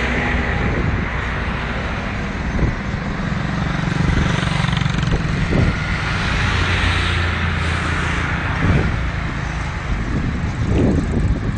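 Road traffic on a busy street: vehicle engines running with a steady low hum and the hiss of passing tyres.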